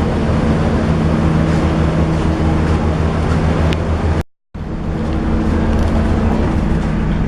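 Steady low diesel engine hum of a standing passenger train, with a constant drone and fixed tones. The sound cuts out to silence for a moment a little over four seconds in, then resumes unchanged.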